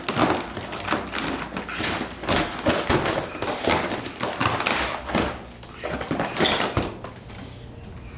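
Foil balloon crinkling and crackling as a baby grabs, pats and mouths it, in an irregular run of scrunches that dies down about seven seconds in.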